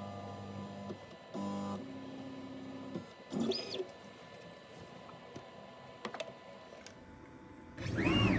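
Onefinity CNC router's stepper motors running a probing routine in short moves: a steady motor hum that keeps changing pitch and stopping, with whines that rise and fall in pitch as an axis speeds up and slows down. The loudest of these comes near the end.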